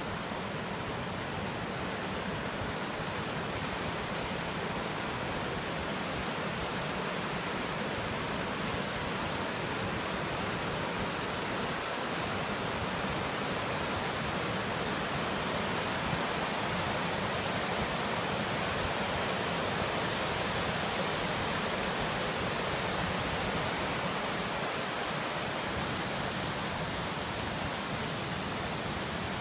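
Steady rushing of a waterfall, water cascading down smooth rock slabs into pools.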